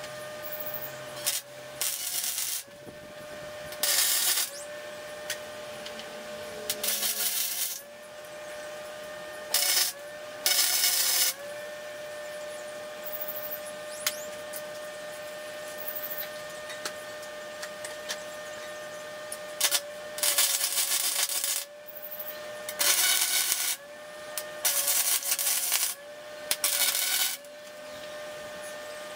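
Wire-feed welder tack-welding steel square tubing: about ten short bursts of arc crackle, each a second or less, with pauses between. A steady whine runs underneath and dips each time the arc strikes.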